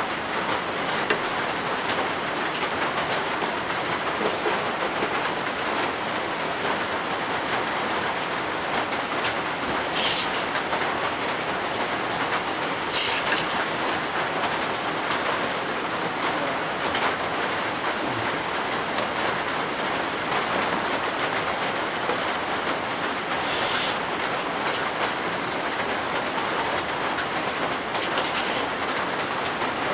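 Steady, even hiss of rain on a roof, with a few short, light clinks of tools on steel, the last near the end.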